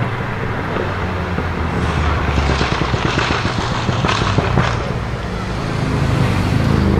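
Tuned Volkswagen Golf 7 R's turbocharged four-cylinder engine and aftermarket exhaust running with a steady low drone. The sound grows louder and rougher, almost crackly, for about two seconds near the middle, then settles again.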